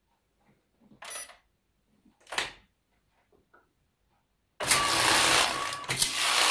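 Passap E6000 double-bed knitting machine: two short clicks as the carriage is handled, then about four and a half seconds in the lock carriage is pushed across the needle beds, a loud, steady sliding noise of the needles knitting a row.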